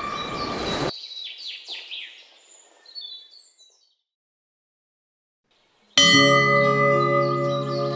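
A ringing musical tone cuts off about a second in, then birds chirp in short falling calls that fade away into silence. About six seconds in, soundtrack music starts abruptly with a sustained chord, and bird chirps continue over it.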